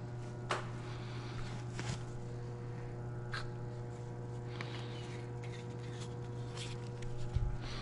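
A steady low machine hum with a few faint clicks and taps from metal bearing shells being handled and set in an engine block, and a soft low knock near the end.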